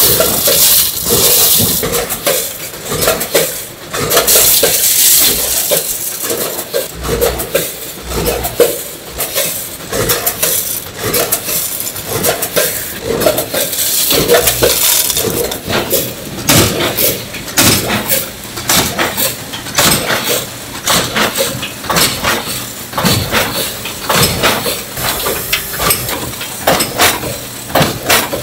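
Continuous, irregular metallic clattering and clinking from corn-snack production machinery, with a few louder rushing stretches.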